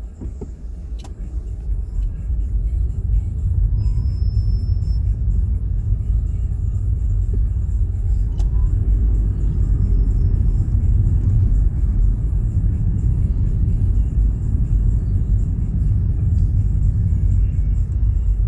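Low road and engine rumble of a car being driven, building over the first few seconds and then holding steady.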